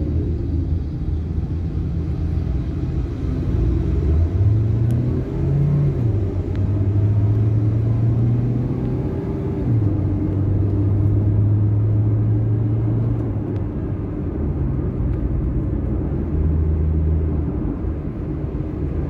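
A car's engine and road noise heard from inside the cabin while driving. About four seconds in the engine note rises in pitch as the car speeds up, then falls back and runs steadily.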